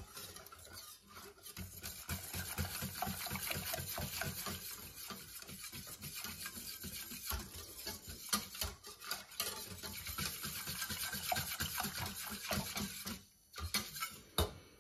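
Wire whisk beating roasted-wheat (kavut) flour into cold water in a stainless steel pot: a fast, steady rhythm of swishing and wires scraping the pot. It stops about a second before the end, followed by a few light taps.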